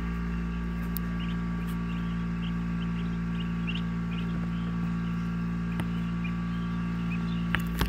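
Steady electrical hum of an egg incubator, with short, faint peeps from newly hatched Muscovy ducklings scattered throughout. A couple of sharp clicks near the end as eggs are handled.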